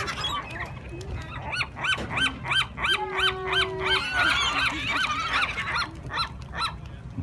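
Birds gathered for food calling: a fast run of short, arched calls, about three a second, with other calls overlapping, for several seconds. A brief steady tone sounds about three seconds in.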